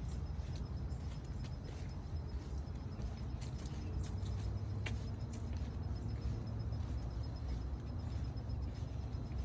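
Outdoor ambience: a steady low rumble with scattered faint, short high chirps and clicks.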